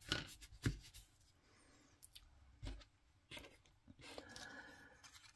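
Faint handling of cardstock: a few light taps and soft rustles as a glued paper piece is pressed down by hand and another paper piece is picked up.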